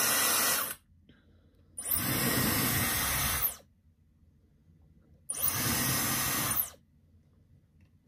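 Dyson Supersonic-style hair dryer blowing in short runs: it cuts off under a second in, then is switched on twice more for about a second and a half each time. A faint high whine comes in as it starts up.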